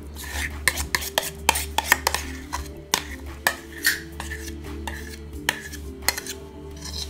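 Metal spoon scraping and clinking against the inside of a metal mixing bowl as thick hummus is scraped out onto a plate: many short irregular scrapes and knocks.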